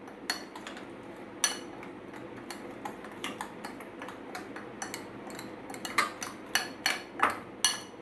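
A spoon mixing a thick masala paste of chili paste and rice flour in a glass bowl, clinking against the glass now and then, with a quicker run of clinks near the end.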